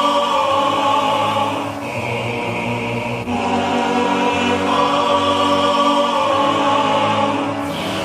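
Music of choral singing: held chords from a choir, changing every couple of seconds.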